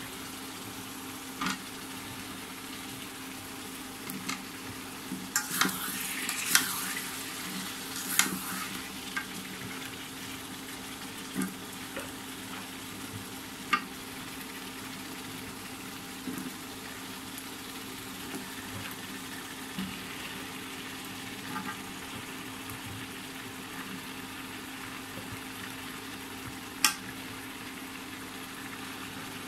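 Squash chunks frying and sizzling in spiced oil in a metal karahi, stirred with a metal spatula that scrapes and knocks against the pan now and then, the knocks bunched about five to eight seconds in. A steady low hum runs underneath.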